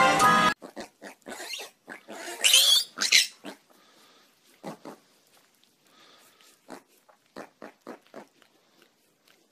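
Piglet grunting in a run of short, separate grunts, with a louder, higher squeal about two to three seconds in. A song cuts off just at the start.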